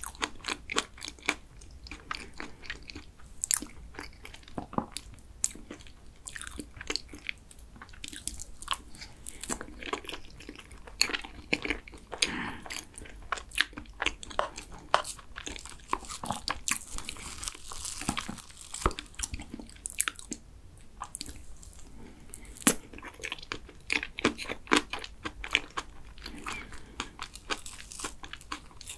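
Close-miked eating sounds of soft cream cake: chewing and wet mouth sounds, with many short clicks from a plastic spoon against a clear plastic cake box.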